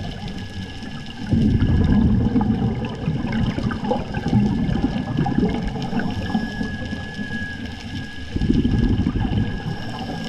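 Scuba diver breathing through an open-circuit regulator underwater: exhaled bubbles gurgle and rumble past the mask twice, about a second in and again near the end, with quieter inhaling between.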